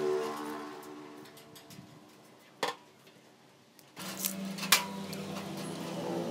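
A few sharp metal clinks and clanks, one a little before halfway and the loudest about three-quarters through, from a steel mesh sheet and tools being handled on a metal worktable. A steady low hum comes in partway through.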